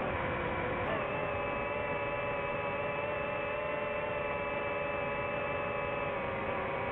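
DJI FPV drone's motors and propellers whining steadily in forward flight, over a rushing noise. The pitch steps up slightly about a second in.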